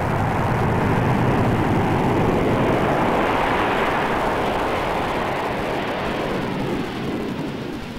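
Jet roar of a C-17 Globemaster III's four turbofan engines at full power as it lifts off. The roar swells early, then slowly fades as the aircraft climbs away.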